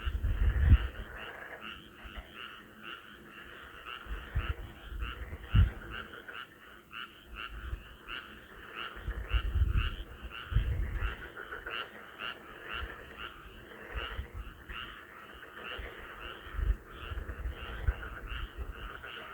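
A chorus of frogs croaking, many short calls overlapping in a fast, continuous pulse. Low rumbles come and go underneath, loudest near the start, about five and a half seconds in, around ten seconds in and again near the end.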